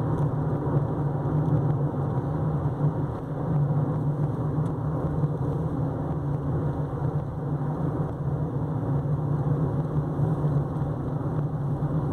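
A car driving at steady speed, heard from inside the cabin: engine and tyre road noise as a steady low hum.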